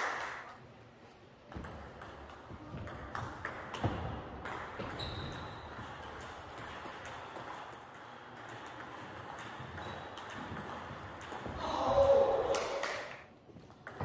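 Celluloid-type table tennis ball clicking on bats and the table during a rally, with sharp ticks several times a second and fainter clicks from neighbouring tables. A man's voice rises loudly near the end.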